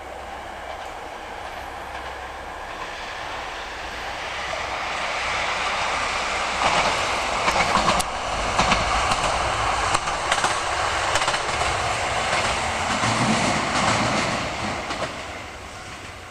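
A Kyoto Tango Railway diesel railcar passes over the crossing. It builds up, and its wheels clack sharply over the rail joints as it goes by, then it fades away near the end.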